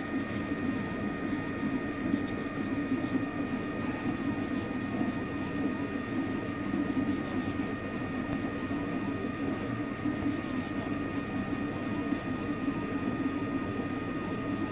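Ultimaker dual-extrusion 3D printer running mid-print: a steady mechanical hum with a few thin, high, steady whining tones over it.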